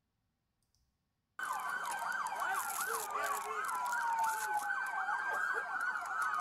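Several police sirens wailing at once, starting suddenly about a second and a half in after silence: some sweep up and down quickly in a fast yelp, others rise and fall slowly.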